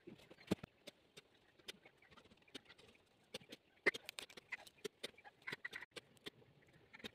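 Paintbrush dabbing and scraping paint onto textured paper and masking tape: irregular light taps and scratches, the sharpest about half a second in and about four seconds in.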